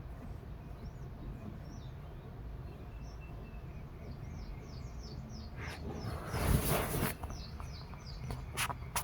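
Birds chirping in quick runs of short downward chirps over a steady low rumble, with a brief loud rush of noise about six and a half seconds in and a few sharp clicks near the end.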